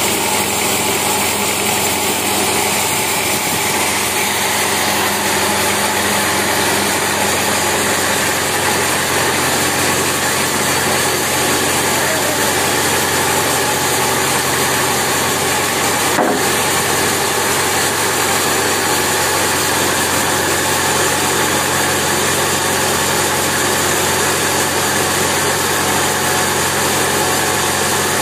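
Band sawmill machinery running steadily, with one sharp knock about 16 seconds in.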